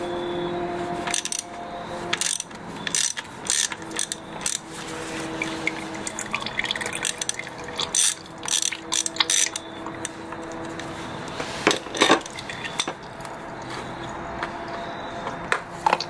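Hand ratchet clicking in short, irregular runs as it turns a cap-type oil filter wrench to break loose and unscrew a motorcycle's oil filter, over a steady hum.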